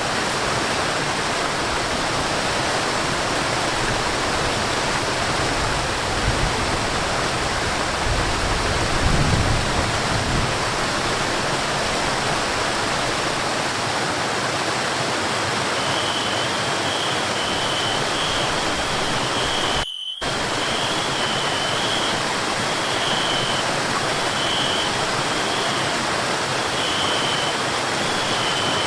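Forest waterfall: a steady rush of falling water. From about halfway in, a high thin note comes and goes over it, and the sound drops out for an instant about two-thirds of the way through.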